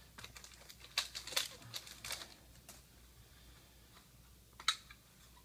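Faint rustles and light clicks of trading cards being handled, a cluster in the first three seconds and one sharper click near the end.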